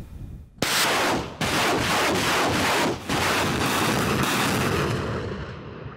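Truck-mounted multiple rocket launcher firing a salvo: rockets leave one after another in quick succession, a loud rushing noise with repeated sharp onsets that starts about half a second in and fades over the last couple of seconds.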